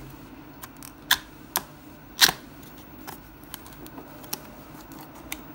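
Cardboard packaging being handled as a box flap is opened: a few scattered sharp clicks and taps, the loudest a little over two seconds in.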